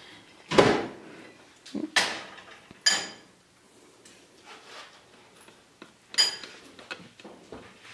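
Metal teaspoon clinking and knocking against a ceramic mug while caramel is spooned into coffee: four sharp clinks, the loudest about half a second in, the later ones with a short high ring.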